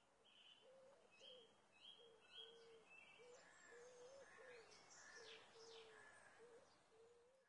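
Faint birdsong: several birds chirping and warbling, over a low, short cooing note repeated about every half second.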